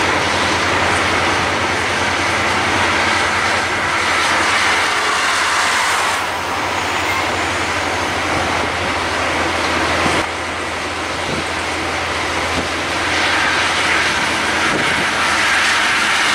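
Steady highway traffic noise from trucks on the move: engine and tyre rumble with rushing road and wind noise, heard from a moving vehicle.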